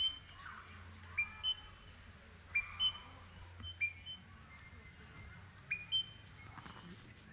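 Crimson rosella giving its whistled contact call: a short clear note followed by a higher one, repeated about five times at irregular intervals of one to two seconds.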